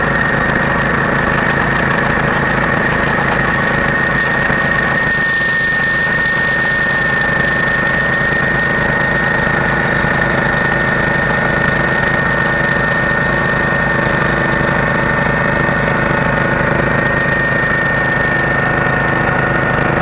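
Small engine running steadily on a homemade water-well drilling rig while it drills, an even low rhythm with a steady high whine over it.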